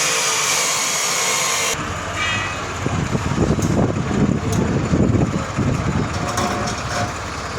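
A loud steady hiss that cuts off suddenly under two seconds in, then a low, uneven rumble of running machinery.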